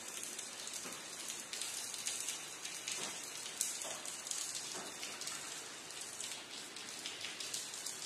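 Steady rain falling: an even hiss with scattered louder drop taps.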